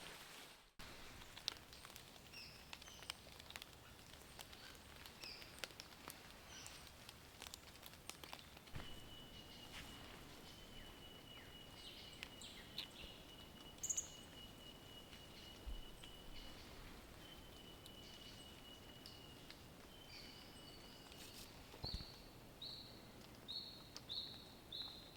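Quiet forest morning ambience with birds calling: scattered short high chirps, a thin high note held for about ten seconds in the middle, and a quick run of five short high notes near the end, with faint scattered ticks.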